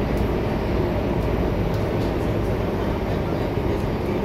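Steady running rumble of an MTR Hyundai Rotem R-Train electric multiple unit, heard from inside the passenger car: wheels on rails and traction noise at speed.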